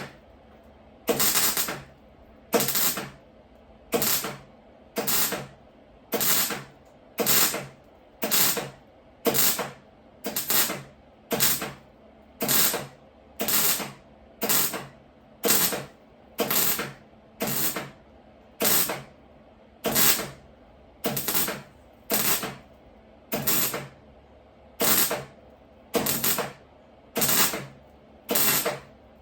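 Welding arc crackling in short bursts, about one a second with brief pauses between: stitch welding the sheet metal of a Mercedes Wolf's window frame.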